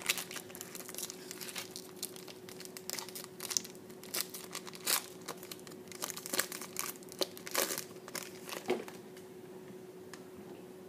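Foil wrapper of a Topps Triple Threads football card pack being torn open and crinkled by hand: a run of short, sharp crinkles and tears that dies down near the end as the cards come out.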